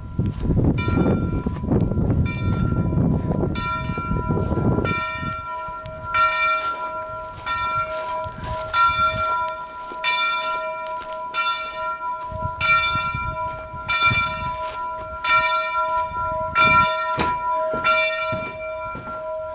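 A large bell rung over and over at a steady pace, about three strokes every two seconds, each stroke still ringing when the next lands. A low rumble lies under the first few seconds.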